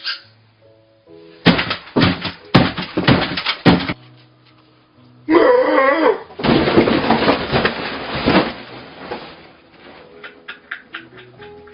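Soft background music under loud, noisy crunching and crashing sound effects, with a short pitched wavering call about five seconds in.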